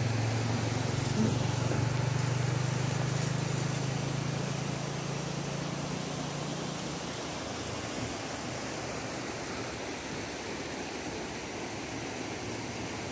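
A steady low engine hum that fades away about seven seconds in, under a constant rushing noise.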